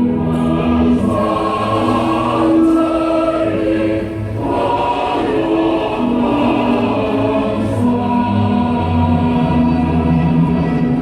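Music with a choir singing long held notes, played loud and steady.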